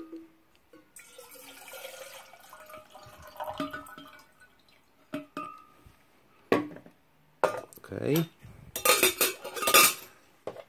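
Water poured from a plastic bottle into a 1-litre stainless steel camping kettle, the pouring rising in pitch as the kettle fills. Then come several metallic clinks and clanks as the kettle's lid and handle are handled, loudest near the end.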